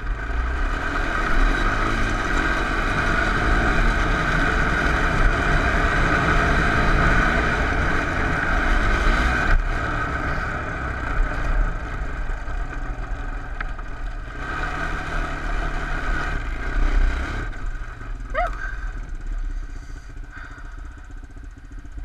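Honda TRX250 four-wheeler's engine running under throttle while riding over snow; it pulls hard for the first several seconds, eases off, picks up again briefly, then settles to a lower run near the end.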